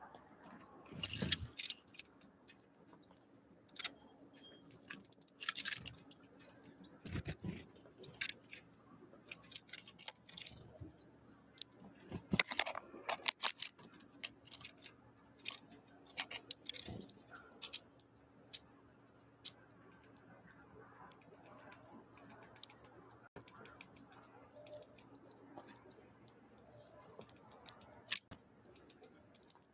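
Small wild birds at a feeding spot: irregular sharp taps and clicks of pecking and landing, with a few brief high chirps, over a faint steady low hum.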